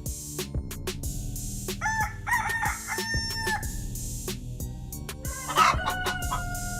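Rooster crowing twice: one crow about two seconds in and another starting about five seconds in that carries on past the end, each ending on a long held note. Scattered short clicks and a steady low hum sit underneath.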